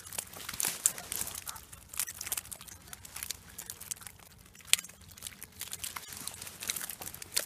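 Close rustling and crinkling with many scattered sharp clicks, from handling near the microphone over a keepnet of fish; one louder click comes just before five seconds in.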